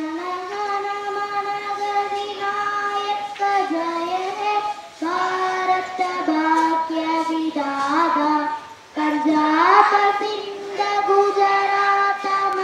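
A young girl singing solo into a microphone: one voice holding long, drawn-out notes in phrases, with short breaks for breath about five and nine seconds in.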